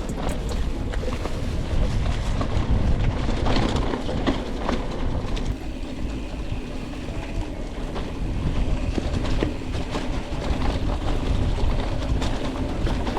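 Mountain bike riding over rough dirt trail, the frame, chain and parts rattling and knocking with each bump over tyre noise, with low wind rumble on the onboard camera's microphone.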